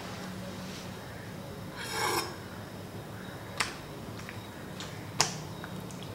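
A Damascus chef's knife and a raw chicken breast handled on a wooden cutting board: one short rasping scrape about two seconds in, then two sharp clicks about a second and a half apart.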